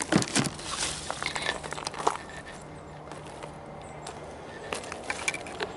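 Footsteps and handling noise on dry dirt and brush: a cluster of clicks and light knocks in the first two seconds, a quieter stretch, then a few more near the end.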